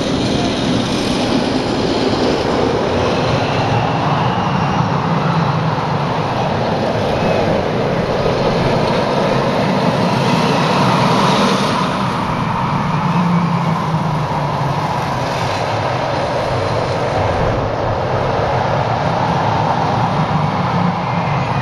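Roller coaster train running along its steel track, a steady rumbling rush that swells a little about halfway through as the cars pass close by.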